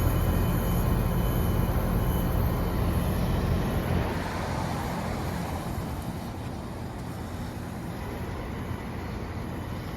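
1991 Bryant Reliant 697A heat pump outdoor unit running through its defrost cycle: a loud low rumble with a rushing hiss that fades about four seconds in, leaving a softer, steady hiss.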